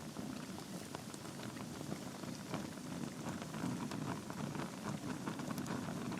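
Wood fire burning in a fireplace: a steady low rushing of flames with many small sharp crackles and pops from the burning logs.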